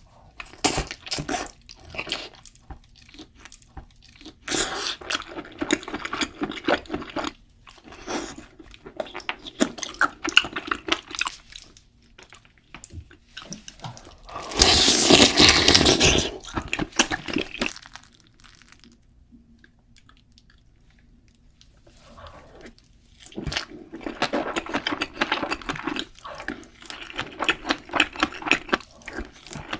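Close-miked eating of king crab: clusters of crackling, crunching shell and chewing. Near the middle comes a louder continuous noisy stretch of about three seconds.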